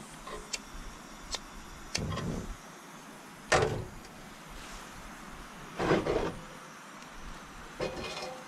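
Gear being handled at a small gas grill: a few sharp clicks, then several short scraping, sliding clunks, the loudest about three and a half seconds in and again near six seconds.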